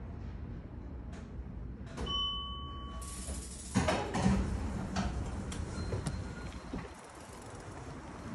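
Glass-walled public lift arriving: a low steady hum, a short electronic tone about two seconds in, then the automatic doors sliding open with a rattle of the door mechanism, the loudest part. After that a bicycle rolls out of the lift onto the path.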